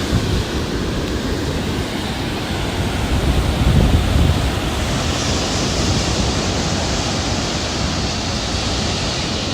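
Ocean surf breaking on the beach in strong wind, with wind buffeting the microphone. A heavier low rumble swells about four seconds in, then a brighter hiss of wash comes up over the rest.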